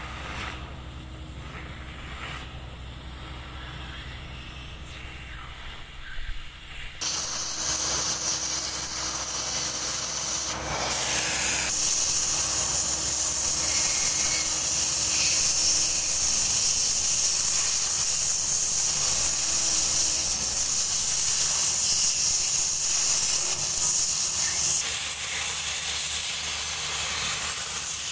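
Oxy-fuel cutting torch cutting 20 mm steel plate. A loud, steady, high hiss of the gas jet starts suddenly about seven seconds in, after a quieter stretch with a low hum.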